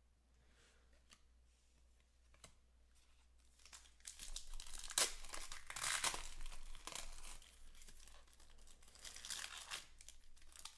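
Foil wrapper of a Panini Stars & Stripes baseball card pack crinkling and tearing open by hand, beginning about four seconds in, with the sharpest rips around five and six seconds in.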